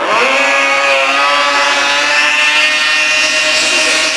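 Racing snowmobile engines at full throttle. The sound comes in suddenly, sweeps up in pitch in the first half second, then holds a steady high-revving drone.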